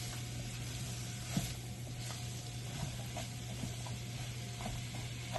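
Chopped chayote and carrots sizzling in hot oil in a pan over high heat, with a few light clicks of a utensil stirring them. A steady low hum runs underneath.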